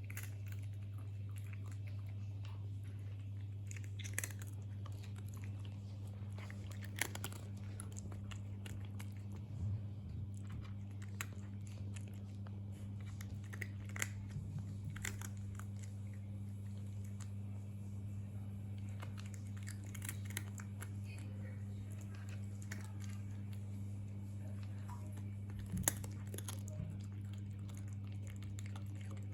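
A pet chewing a crunchy snack: scattered, irregular crisp crunches, the loudest near the end, over a steady low hum.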